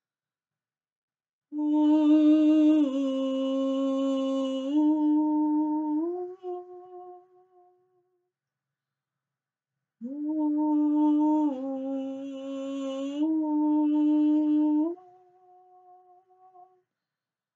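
A woman's voice singing slow, wordless improvised phrases: two long phrases of held notes that step down and back up in pitch, with a few seconds' pause between them.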